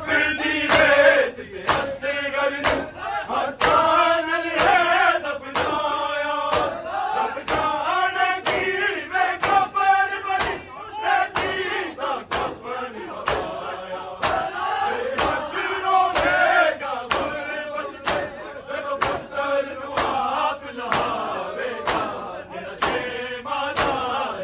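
A group of men chanting a noha in unison, with loud, regular strokes of hands beating on bare chests (matam) keeping a steady beat under the voices.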